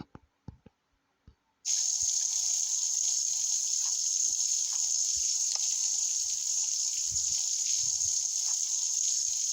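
A few light clicks, then a shower is turned on less than two seconds in and water sprays in a steady hiss.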